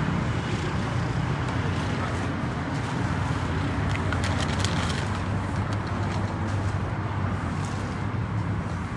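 Steady motor-vehicle and traffic noise with a constant low hum, and a few light clicks about four to five seconds in.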